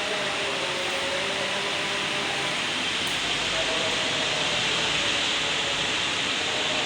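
Manual lathe running while its cutting tool skims a brake disc rotor: a steady, even hiss with faint humming tones underneath.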